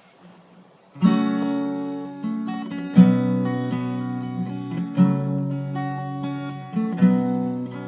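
Acoustic guitar strumming a chord about every two seconds, each chord left to ring and fade: the instrumental intro of a song.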